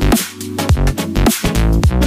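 Background electronic music with a heavy bass line and a punchy drum beat.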